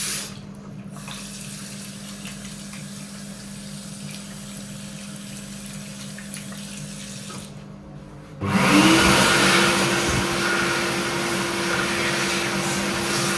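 Kuaierte K2201 (Heatstore Tornado 2) hand dryer switching on about eight seconds in: the motor whines up to a steady pitch within a second and then runs with a loud rush of air. Before it starts, only a faint steady hum.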